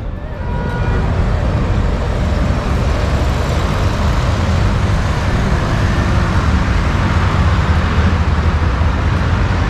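Steady traffic noise from a busy multi-lane road: cars, vans and motorcycles passing, with a strong low rumble. It gets louder about half a second in, then holds steady.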